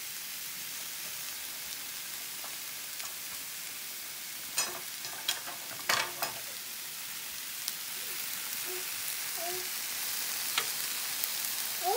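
Split black tiger shrimp frying in butter in a pan, a steady sizzle, with a few sharp clicks around the middle.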